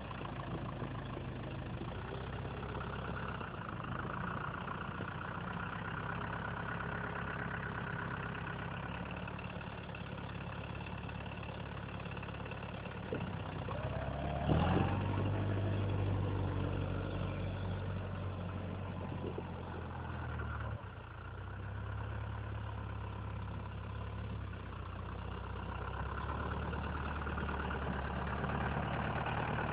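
Lamborghini Cross 70 tractor's diesel engine running steadily while its front loader bucket works snow. Its revs rise briefly about halfway through.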